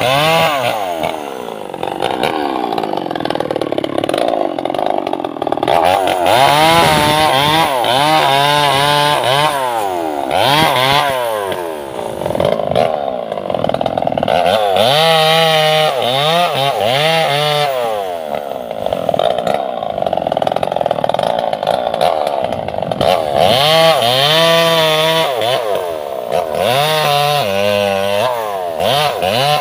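Two-stroke chainsaw cutting sengon laut logs, its engine revving up and dropping back several times, with stretches of steady full-throttle running as the chain bites into the wood.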